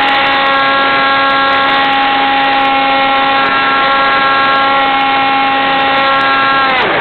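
Electric motor and propeller of an AXN Clouds Fly RC plane whining at a steady pitch over wind rush, heard from a camera riding on the plane. Near the end the pitch drops away sharply as the throttle is cut, leaving only the rush of wind.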